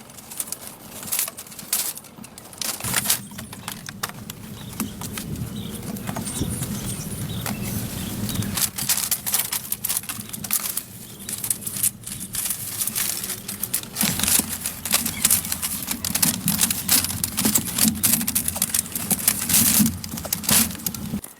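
Rapid, irregular taps and knocks with some scraping, like hand work on wood or stone. A low steady hum runs under them for two long stretches.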